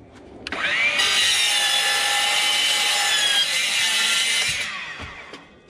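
DeWalt sliding compound miter saw spinning up with a rising whine, cutting through a laminate flooring plank, then winding down with a falling whine after the trigger is released, near the end.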